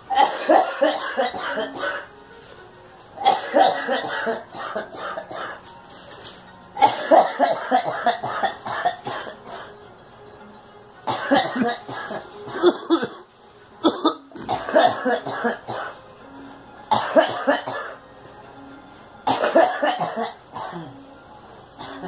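A woman coughing in repeated hard fits, about seven bouts of several quick coughs each, a few seconds apart.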